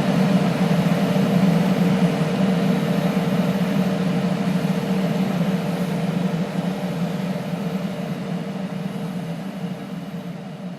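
AO Smith water heater's power-vent blower fan running with a steady hum and a steady higher tone over it, getting gradually quieter over the last few seconds. The fan has been running nonstop with a weird sound since a power outage.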